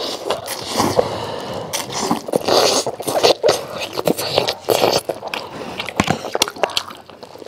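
Spaghetti being slurped up from a plate and chewed, close to the microphone, in a run of irregular wet sucking bursts with small clicks.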